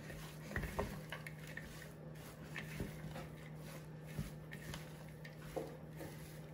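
Silicone spatula stirring chopped parsley salad in a glass bowl: faint moist stirring with scattered light taps against the glass.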